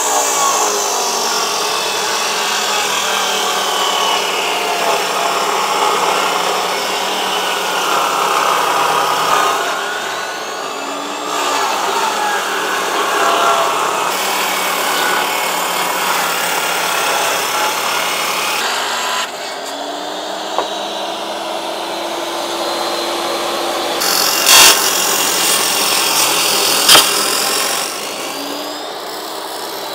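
Jobsite table saw ripping long weathered wooden boards lengthwise into narrow strips, the blade's pitch shifting as it cuts. Two sharp knocks near the end.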